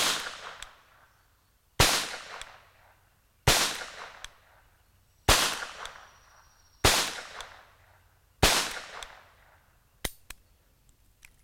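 Webley & Scott Mark IV revolver firing .38 S&W rounds: six shots, one about every second and a half to two seconds, each trailing off in echo. A few small clicks follow near the end.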